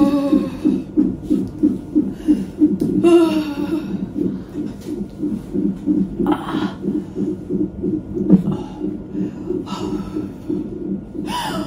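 Fetal heart monitor's Doppler speaker playing the unborn baby's heartbeat: a rapid, even whooshing pulse. Over it the labouring mother lets out a few groans and breaths as a contraction comes on.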